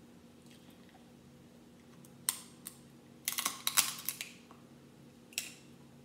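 Crab leg shells cracking and snapping as they are broken apart by hand and bitten. There is one crack, then a quick flurry of crisp cracks about three to four seconds in, then a single crack near the end.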